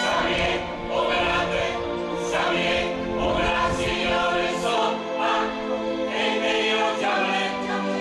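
Mixed choir of men's and women's voices singing together in phrases.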